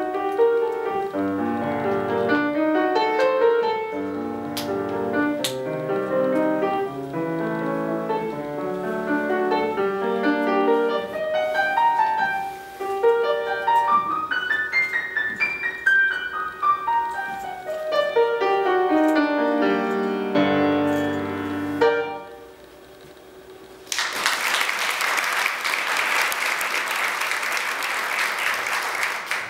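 Grand piano played solo: a run climbs and then falls back in the middle, and the piece ends on closing chords about 22 seconds in. After a short hush, audience applause starts about two seconds later and carries on.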